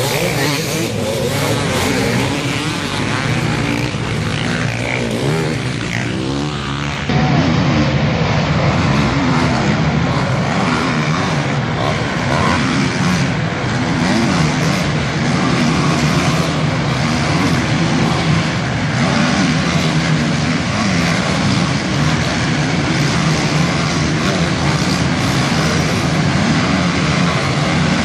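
Several motocross bike engines racing and revving, their pitches rising and falling over one another as the bikes accelerate and pass. The sound steps up louder about seven seconds in.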